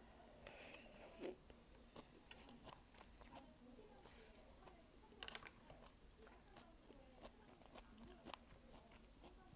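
Close-up eating sounds: a person chewing and biting food, with a few sharp clicks and soft crunches scattered through.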